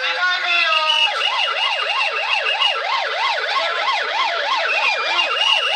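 Police car siren in a fast yelp, rising and falling about three times a second, with a steady high tone above it. During the first second the yelp gives way to a briefly held steady tone, then picks up again.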